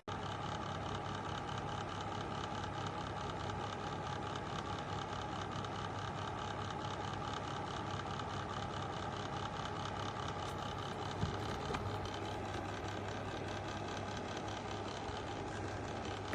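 Electric fan heater running: a steady whir of moving air over a low motor hum.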